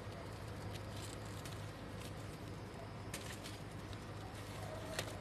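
Faint rustle of a paper kite and its thread being handled while a bridle is tied, with soft crackles about three seconds in and again near five seconds, over a steady low hum.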